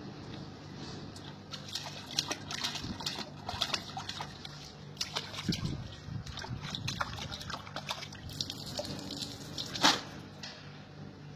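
Water sloshing and splashing in a large steel basin as a toddler slaps and paddles in it: short, irregular splashes, with a louder one near the end.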